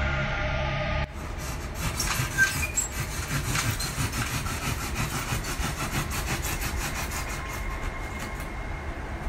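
A box cutter blade sawing through the wall of a Styrofoam cooler: a rasping scrape of quick, repeated strokes. It starts about a second in, where background music cuts off abruptly.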